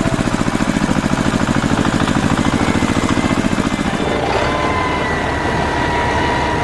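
Tractor engine sound effect running with a fast, even chug. About four seconds in it changes to a smoother, steadier run with a steady high tone over it.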